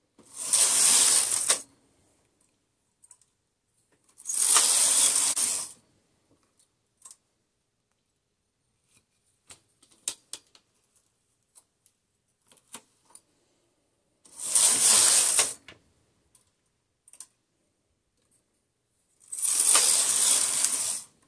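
Brother 965i knitting machine carriage pushed across the needle bed four times, each pass a rushing clatter about a second and a half long, while knitting short rows with stitches held. Light clicks between the passes.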